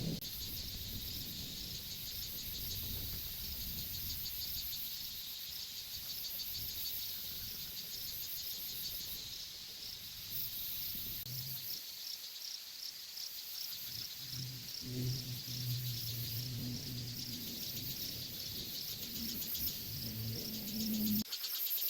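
A chorus of crickets and other insects, chirping in steady, evenly repeating high pulses. A low hum comes and goes in the second half.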